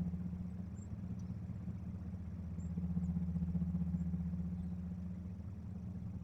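An engine idling steadily below the camera, a constant low hum with an even pitch.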